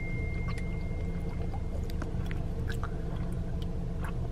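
A person gulping a drink straight from a plastic bottle, with faint swallowing clicks over a steady low hum inside a car.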